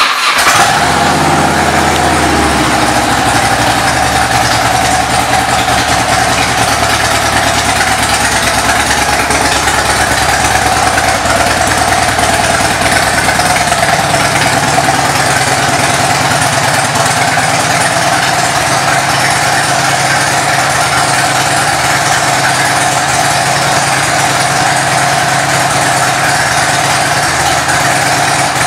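2006 Harley-Davidson Ultra Classic's Twin Cam 88 V-twin engine, just started. Its revs settle over the first couple of seconds and it then idles steadily.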